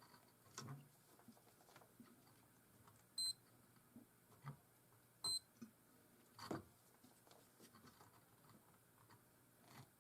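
Two short high beeps from a digital multimeter, about two seconds apart, the kind given while diodes and joints on a power supply board are being probed. A few faint taps are heard between them.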